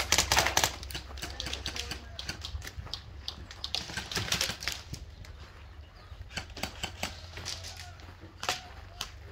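Airsoft rifles firing in rapid bursts of sharp clicking shots, the loudest burst right at the start and another about four seconds in, with scattered single shots after.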